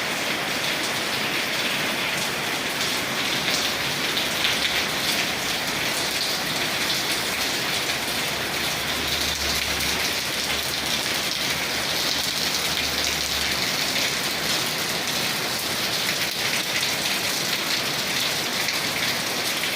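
Steady rain falling: a dense, even hiss of drops with many fine individual drop ticks.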